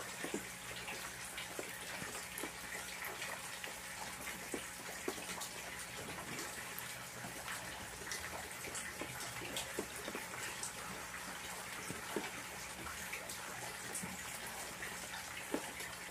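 Steady splashing and trickling of water at a garden fish pond, with many small, irregular drip-like ticks.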